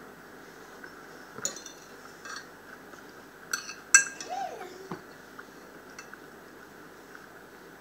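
Metal fork clinking and scraping against a ceramic dinner plate while picking up food, as a handful of scattered light clinks with the loudest about four seconds in.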